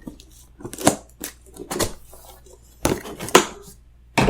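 A laptop's cardboard box being opened and its packaging handled: a series of irregular knocks, scrapes and rustles of cardboard, the loudest near the end.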